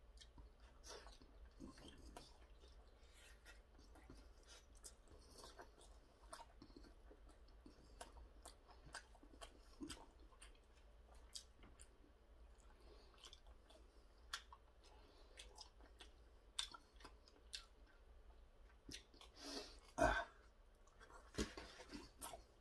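Faint chewing of soft steamed meat dumplings, with small wet mouth clicks now and then. There is a louder bump about twenty seconds in.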